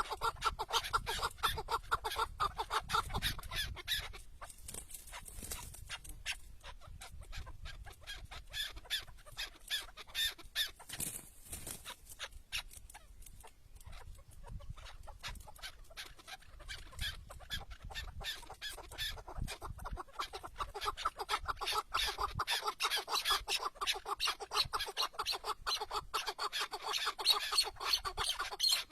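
Chukar partridges calling: long runs of rapid, clucking chuck notes, loud at first, thinning out through the middle, then building again in the second half.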